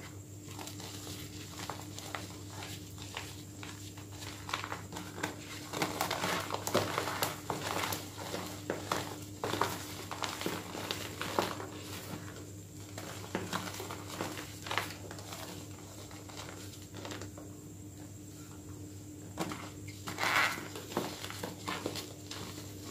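A gym chalk pie being crushed and crumbled between the fingers: dense, irregular crunching and crackling as the block breaks apart and is squeezed into loose powder. The crunching comes in bursts with quieter stretches between, the loudest burst coming near the end.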